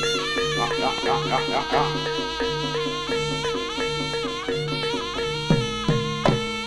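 Jaranan music from a Javanese gamelan ensemble: a slompret shawm plays a wavering, ornamented melody over a steady held tone and a low beat repeating about one and a half times a second. Sharp drum strokes come in near the end.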